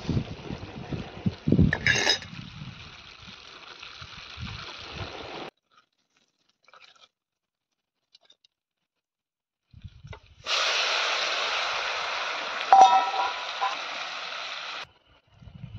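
Prawns sizzling in hot butter in a small frying pan on a portable gas stove. A fainter hiss with low bumps cuts off about five seconds in, and after a few seconds of near silence a louder, even sizzle starts suddenly, with a sharp metal clink of a spoon against the pan partway through, before it stops abruptly.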